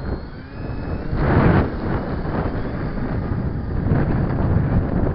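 Wind buffeting the microphone in gusts, loudest about a second and a half in, over the faint high whine of the DH.88 Comet model's electric motors during its takeoff run.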